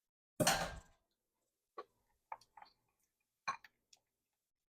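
Kitchen handling sounds while making a dressing: a short noisy burst about half a second in, then several light clicks and clinks, like a utensil tapping a bowl or container.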